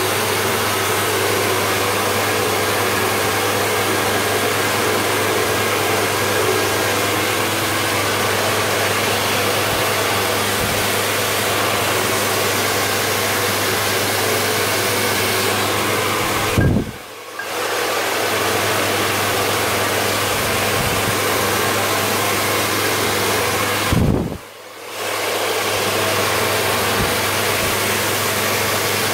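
Handheld hair dryer running: a steady rush of air over a low motor hum. Twice, about halfway through and again later, the sound drops sharply for about a second and then comes back.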